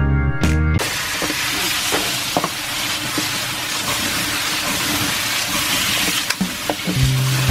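Pork pieces sizzling hard in a wok over a gas flame as they are stirred, with a few light knocks of the utensil against the pan. Background music plays for about the first second and comes back near the end.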